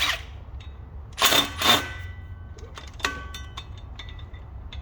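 Metal hand tools clanking against metal parts, two loud clanks about a second in that ring briefly, then lighter clinks and clicks.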